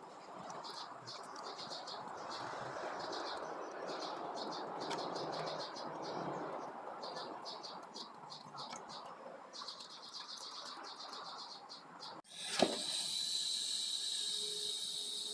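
Insects chirping in short repeated trills over a steady low rushing noise. About twelve seconds in, the sound cuts off abruptly with a click, and a steady high hiss with a thin whistling tone follows.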